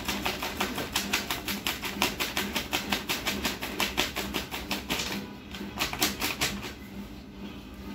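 A thick stack of paper sheets riffled by hand, the edges flicking off the thumb one after another in a fast run of crisp ticks, about five or six a second. The riffling stops about five seconds in, with one short run again near six seconds.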